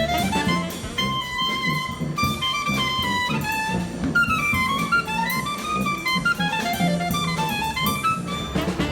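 Jazz music: a horn plays a stepping melody over drums and a bass line.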